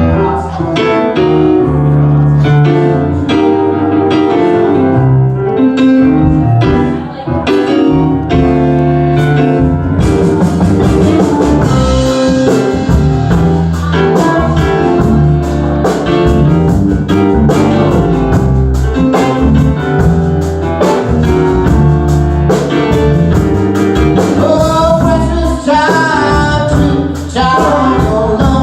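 Live band playing a song: a keyboard plays alone at first, then the drums and the rest of the band come in about ten seconds in, with singing toward the end.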